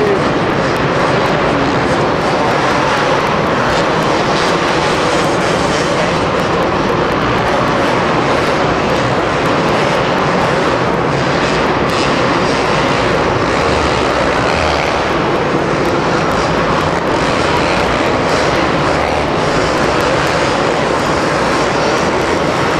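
Two-stroke supercross bikes running hard on the track, a loud, unbroken engine racket with no pauses.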